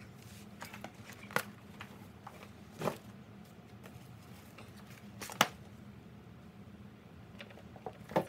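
Objects being handled and moved about in a closet: scattered sharp clicks and knocks with light rustling, the loudest knocks about a second in, halfway through and at the end.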